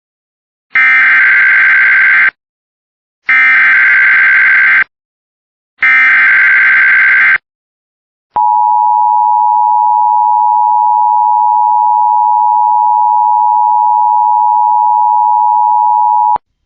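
Emergency Alert System header: three bursts of SAME digital data, each about a second and a half long, followed by the two-tone attention signal held steady for about eight seconds and cut off sharply. It marks the start of a broadcast severe thunderstorm warning.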